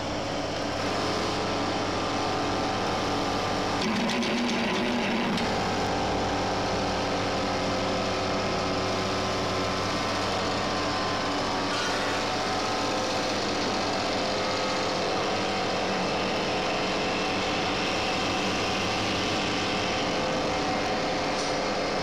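Charcoal briquette extruder running steadily, its motor and chain drive making a constant mechanical hum with several steady tones.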